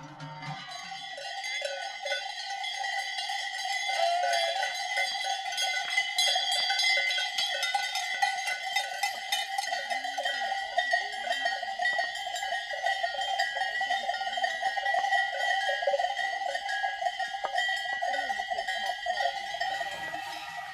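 Many livestock bells on a herd of goats and cows clanging continuously as the animals walk, a dense jangle of overlapping rings.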